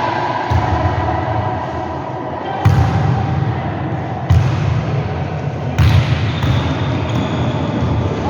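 Volleyball being struck during a rally in a gym: about five hard thuds of hands hitting the ball, a second or two apart, over the steady noise of the hall.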